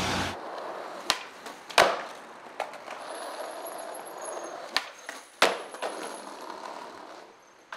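Skateboard rolling on concrete, its wheels hissing, with several sharp clacks of the board striking the ground; the loudest come about two seconds in and again about five and a half seconds in.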